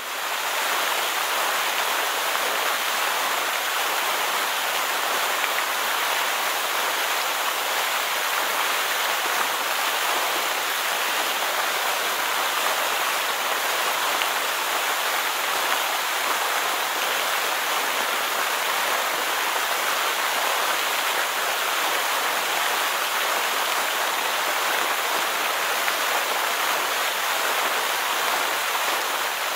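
A steady, even rushing hiss with no pitch or rhythm, like heavy rain or running water.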